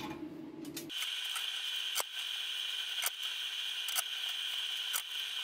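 Nuts and bolts being fitted by hand to bolt a steel template down onto a steel plate: light metal clicks about once a second, over a steady high whine.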